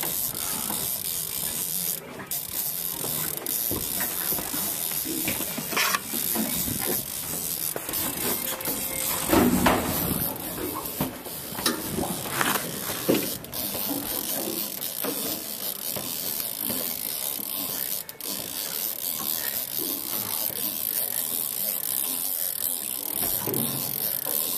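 Conventional fishing reel being cranked steadily, a continuous mechanical whirring and clicking, as a hooked lingcod is reeled up from deep water on a jig. A few short knocks and a louder bump come in the middle.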